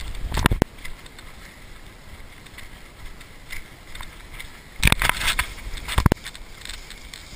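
A moving, carried camera picks up a steady low rush of wind and handling noise. Brief loud scuffs and rushes break through about half a second in, again around five seconds, and once more at about six seconds.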